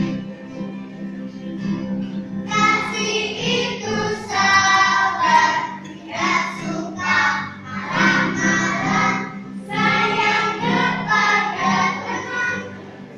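Children's choir singing an Indonesian Sunday-school song together, accompanied by an acoustic guitar. The voices drop back near the start and come in strongly again about two and a half seconds in.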